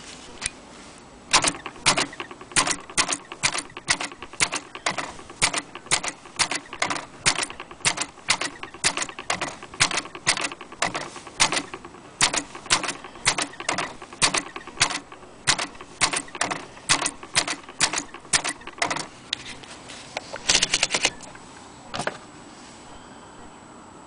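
Corona Standard manual typewriter being typed on: a steady run of sharp key strikes, about two or three a second. The run is followed by a quick cluster of clicks about twenty seconds in and one last single strike.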